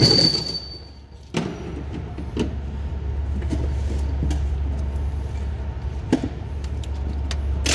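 Light metal clicks and knocks from pliers and parts being fitted at a pallet-jack load-wheel axle, a few scattered strokes over a steady low hum. A thin high whine at the start stops about a second in.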